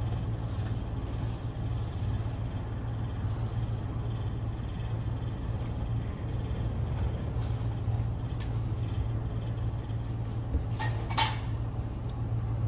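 A steady low hum throughout, with a couple of soft knocks and a brief high squeak about eleven seconds in.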